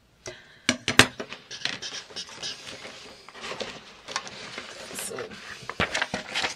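Craft paper and a metal ruler being handled on a cutting mat: a couple of sharp taps about a second in, then paper rustling and sliding. Near the end a sheet of thin paper is lifted.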